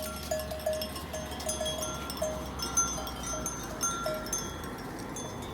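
Many small livestock bells on a flock, clinking and ringing irregularly at several different pitches.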